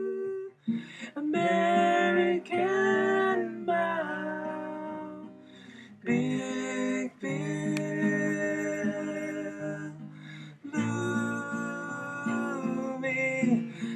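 Music: voices singing a wordless harmony passage in several parts over an acoustic guitar, with held chords that break off and restart every second or two.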